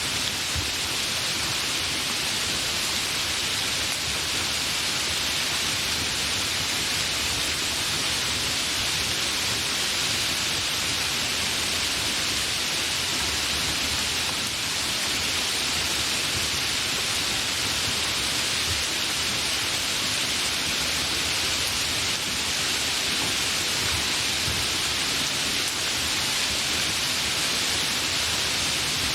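Steady, continuous rain, an even hiss with no breaks or distinct drops.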